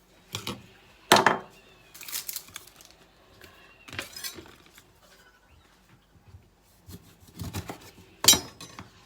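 A spoon clinking against bowls and containers while seasonings are added to the salad dressing: about six separate sharp clinks, the loudest about a second in and another strong one near the end.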